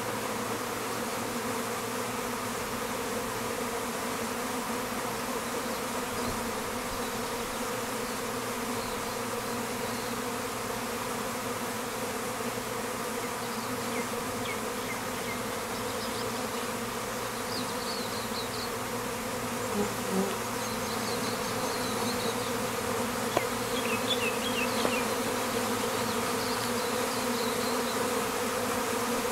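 Honey bees buzzing in a steady, even hum with no break.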